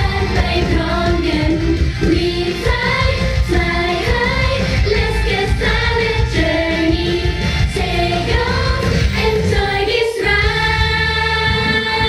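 A group of young women singing a pop song together into handheld microphones over loud, amplified pop backing music. There is a brief dip about ten seconds in, then the music comes back fuller.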